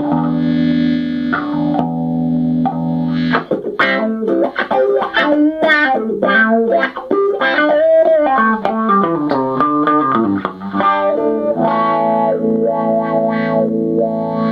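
Electric guitar played through a compressor pedal into a small Peavey combo amp: a held chord with a few re-strikes, then a quick run of single notes starting about three and a half seconds in, ending on a long sustained chord.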